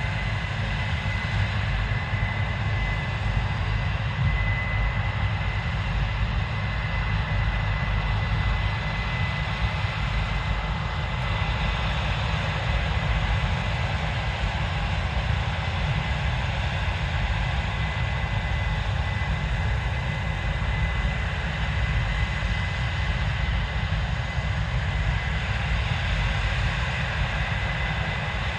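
Case IH 7230 Axial-Flow combine running steadily while harvesting soybeans: the 8.7-litre six-cylinder diesel and threshing machinery make a constant deep rumble with a steady high whine over it.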